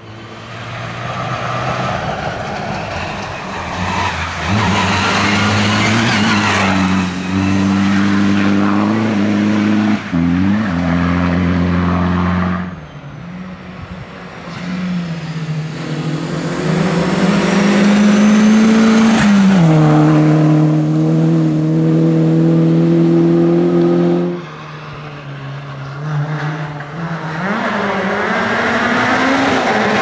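Rally cars driving hard over a gravel stage, one after another. Their engines rev high, and the pitch drops at each gear change. Tyre and gravel noise rides over the engines, and the sound cuts abruptly between passes about 13 and 24 seconds in.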